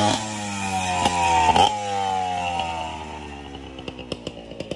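Small dirt bike engine running, its pitch falling steadily for a few seconds, with a brief louder burst about a second and a half in. Near the end it drops to a slow, even beat of single firing pulses, about five a second.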